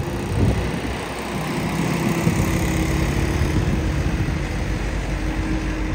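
Minibus engine running steadily, a continuous low hum with a steady drone.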